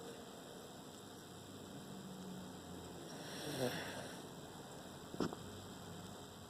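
A sleeping pet snores once, a single breath about halfway through, over a steady electrical hum. A short click follows a little later.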